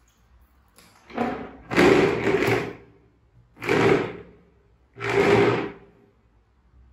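Plastic chair legs scraping across a tile floor as the chair is shoved, in four separate scrapes with the second the longest.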